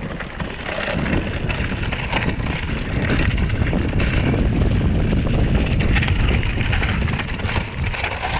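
Wind buffeting the microphone of a mountain bike's handlebar camera while the bike rolls over a rough dirt and stone track, with tyres crunching and the bike rattling in many small clicks. It grows louder about three seconds in.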